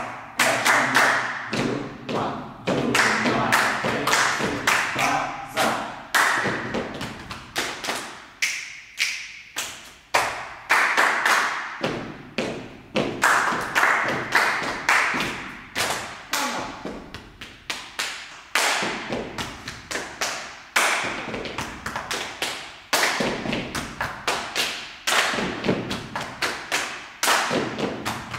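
A group doing body percussion together in rhythm: sharp hand claps mixed with duller pats of hands on the chest, in a repeating pattern of many strokes.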